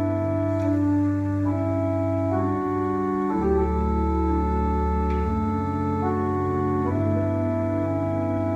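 1975 Ruffatti pipe organ playing slow, held chords that change every second or so over a deep sustained pedal note. The pedal drops lower for a couple of seconds in the middle, then returns.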